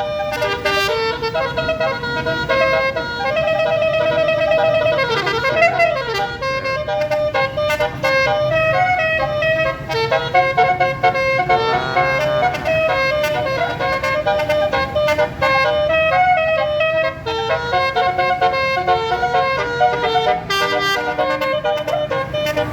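A bus's Basuri telolet horn, a set of electrically switched air horns, playing a melody note by note with a couple of sliding, siren-like sweeps. The bus engine rumbles low underneath.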